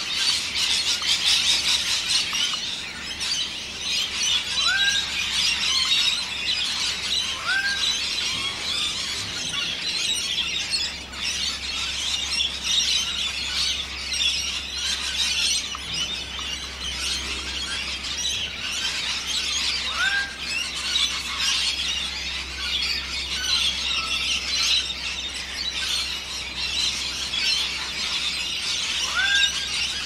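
Many birds gathered in a tree, calling at once: a dense, continuous chorus of high squealing chatter. A lower call that rises and then drops back comes through a few times.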